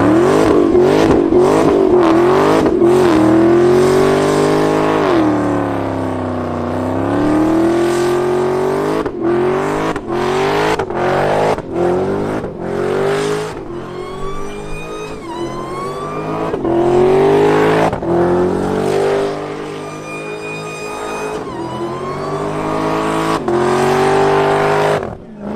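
A performance car's engine revving hard, its pitch rising and falling again and again, with quick blips at first. In the middle comes a run of sharp exhaust pops and cracks, and later the revs climb and drop suddenly several times like gear changes.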